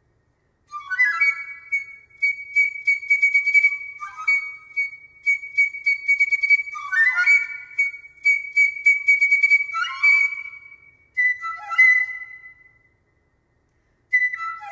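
Solo piccolo playing long held high notes that pulse rapidly, each phrase entering with a short quick figure below the held note. Brief silences fall between phrases, one just after the start and one near the end.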